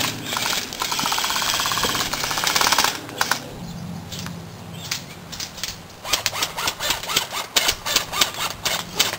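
An airsoft electric gun firing a long full-auto burst, a fast even rattle that stops about three seconds in. From about six seconds in comes a run of sharp, irregular clicks and snaps.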